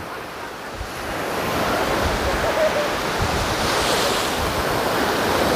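Black Sea surf: small waves breaking and washing up over the sand at the water's edge, the wash swelling about a second in and again near the middle.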